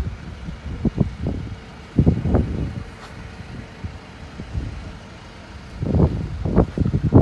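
Wind buffeting the phone's microphone in irregular low rumbling gusts, the strongest about two seconds in and again near the end, over a faint steady hum.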